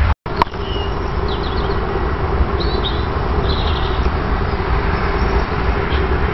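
A 1:22.5-scale live-steam 2-8-2 Mikado locomotive standing and hissing steadily, with small birds chirping in the background. A brief cut and click come just after the start.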